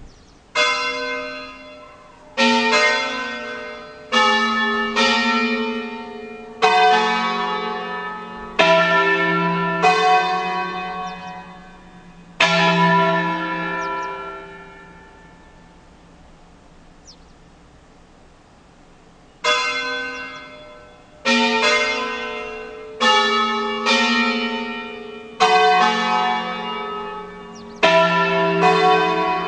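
Peal of five Ambrosian-system church bells tuned E, F sharp, G sharp, A and B, rung in concerto: single strokes of different bells, one every second or two, each ringing on and fading, in a slow melodic sequence. About halfway through there is a pause of some five seconds before the strokes resume.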